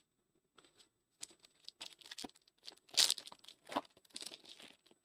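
Trading cards being handled and slid through by hand, a run of short papery rustles, loudest about three seconds in.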